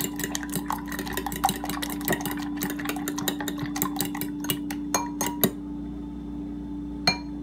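Raw eggs and bacon pieces being stirred briskly with a plastic fork in a ceramic bowl: rapid clicking and scraping of the fork against the bowl, stopping about five and a half seconds in, then one or two single knocks. A steady low hum runs underneath.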